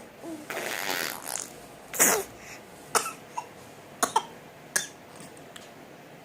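A baby blowing raspberries, spraying spit through the lips. A sputter of about a second comes first, then the loudest burst about two seconds in, then five short spitting bursts.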